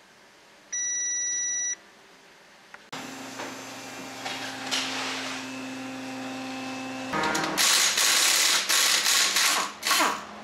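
A single electronic beep lasting about a second, then the steady hum of a car lift's motor raising the car. About seven seconds in, a pneumatic impact wrench starts loosening the wheel nuts in several loud bursts.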